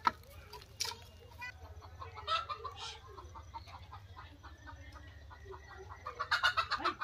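Chickens clucking in short runs, loudest in a quick series near the end, with a sharp crack of dry firewood sticks being handled at the start and again about a second in.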